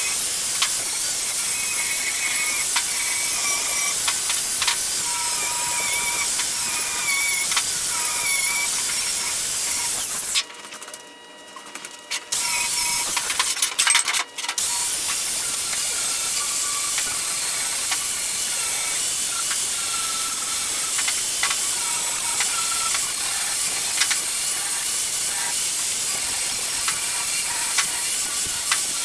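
Handheld angle grinder's abrasive disc grinding the cut edges of steel square tubing to prep them for welding, a steady hissing grind. It stops for about two seconds roughly ten seconds in, with a few knocks of steel tubing being moved on the metal table, cuts out again briefly, then grinds on steadily.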